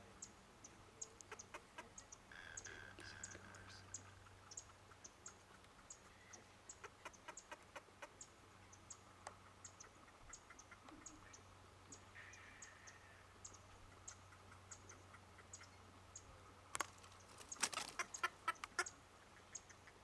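Faint wetland bird sounds: a steady scatter of high ticks, a couple of short calls, and a quick run of louder clicks near the end.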